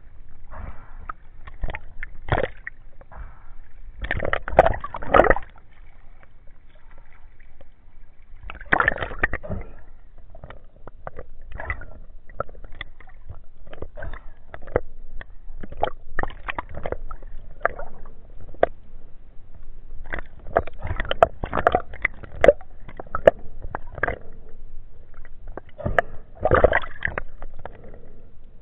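Sea water sloshing and gurgling around a camera held at and just under the surface, in irregular surges every few seconds with scattered sharp clicks in between.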